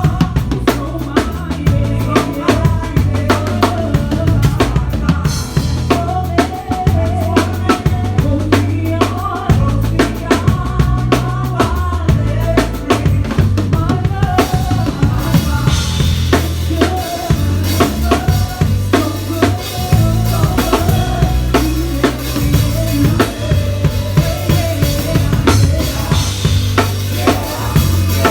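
Drum kit played live in a church band: steady kick and snare strokes over a bass line, with a melody above. Cymbals come in brighter about halfway through.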